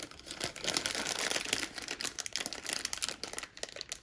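Crinkling and rustling of trading cards and their packaging being handled, a dense run of small crackles and quick clicks.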